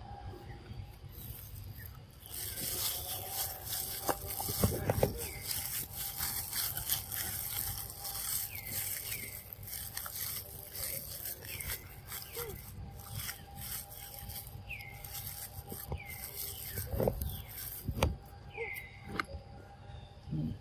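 Continuous rustling and crackling, starting about two seconds in, with short high squeaks that fall in pitch and repeat irregularly every second or two. There are a few dull thumps, a handful around four to five seconds in and again near the end.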